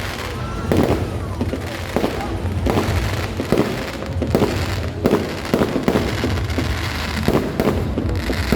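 Fireworks going off in a rapid, irregular series of bangs, several a second, over a continuous low rumble.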